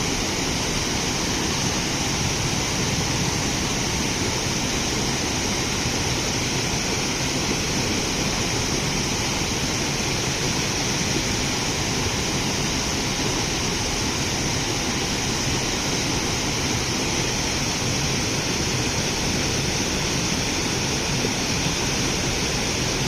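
Steady rushing noise, even and unchanging throughout, with no distinct events in it.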